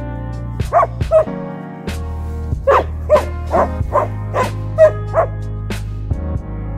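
Samoyed puppy barking, about nine short barks in quick succession, over background music.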